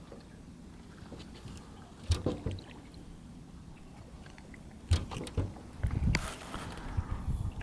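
Knocks and thumps in a jon boat, a short cluster about two seconds in and more from about five to seven seconds in, over a low, steady rush of river water.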